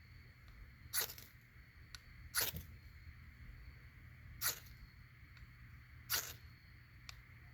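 Four separate strikes of a knife spine scraped down a Coghlan's ferrocerium rod to throw sparks, each a short rasp, every one and a half to two seconds.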